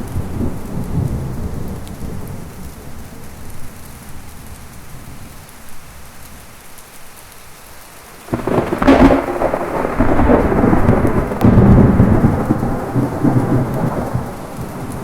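Thunderstorm with steady heavy rain and low rolling thunder, then a sudden loud thunderclap a little past the middle that keeps rumbling for several seconds before fading back under the rain.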